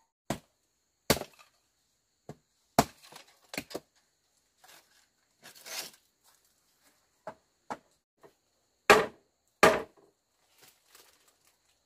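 A hand tool striking in about a dozen uneven blows, with the two heaviest close together about three-quarters of the way through and light rustling between strikes.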